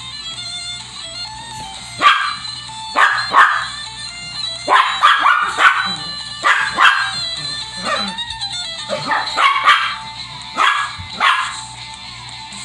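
Small Shih Tzu barking in a rapid string of short, sharp play barks, starting about two seconds in and stopping shortly before the end, over background music.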